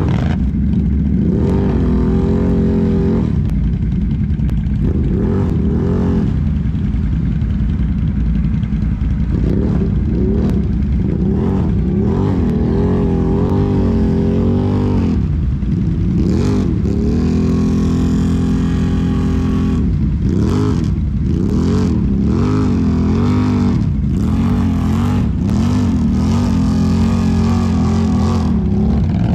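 Can-Am Renegade ATV's V-twin engine running close up, revving up and dropping back again and again while working through mud. Around the middle it holds a steady higher rev for a few seconds.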